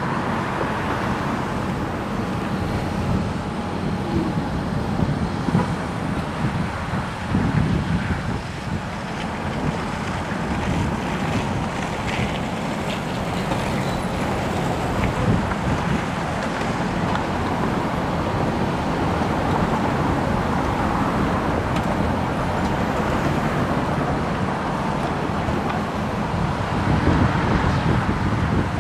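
Wind rushing over the microphone on a moving electric scooter, mixed with steady street traffic noise.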